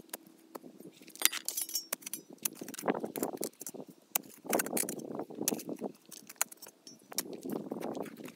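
Shovel digging into soil and roots around a juniper stump: gritty scraping thrusts about every two seconds, with many sharp clicks and clinks.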